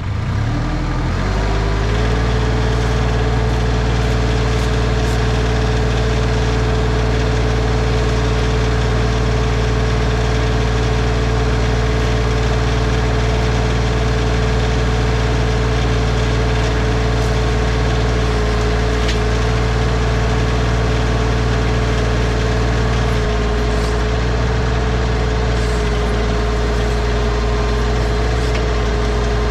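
Bad Boy 4035 tractor engine speeding up over the first second or two, then running steadily at raised throttle with a steady whine over it, as the backhoe is set to dig.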